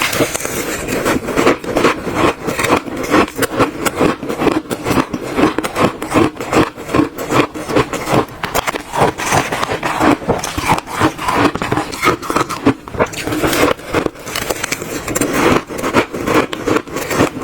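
Close-miked crunching of shaved ice being bitten and chewed by the spoonful: many rapid, crackling crunches one after another.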